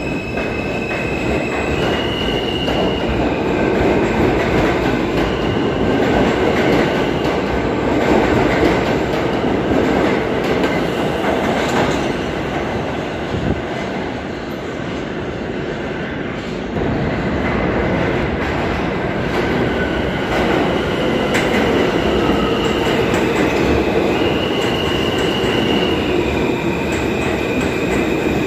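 R160 subway trains running through an underground station: a steady rumble of wheels on rails throughout, with stepped high electric whine tones from the trains' propulsion near the start and again in the last several seconds. The rumble eases about halfway through and builds again as another train comes in.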